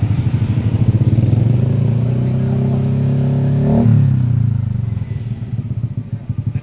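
Yamaha NMAX 155 scooter's single-cylinder four-stroke engine running through an F2racing CL Medium aftermarket exhaust. It idles with a lumpy beat, is revved up over a couple of seconds to a peak nearly four seconds in, then drops quickly back to idle.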